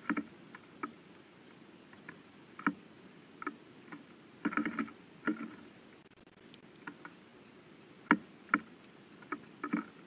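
Irregular soft taps and knocks of small birds pecking seed and hopping on a platform feeder tray right beside the camera, single or in quick little clusters, with a busier flurry about halfway through.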